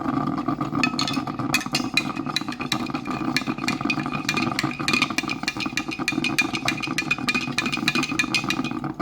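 Metal spoon clinking rapidly against a coffee mug, about four or five clinks a second, starting about a second in, as coffee is stirred. A steady hum runs underneath.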